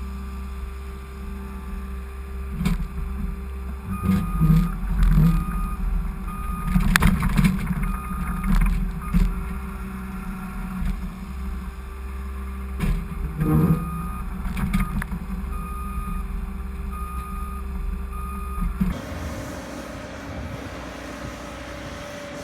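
Skid steer engine running while it works a box snowplow, with a reversing alarm beeping over it and several sharp metal clanks. Near the end the sound changes to a steadier, different hum.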